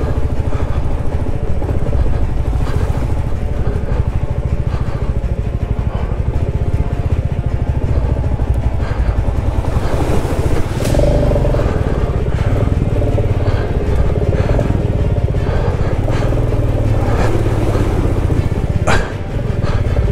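Royal Enfield Classic 350's single-cylinder engine running steadily as the motorcycle rides over a muddy river-crossing track, with water splashing around the front wheel about halfway through.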